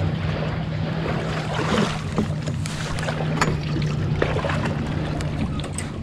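Yamaha EX WaveRunner idling steadily under wind noise on the microphone, with a few scattered knocks as someone climbs aboard a beached fibreglass sailboat.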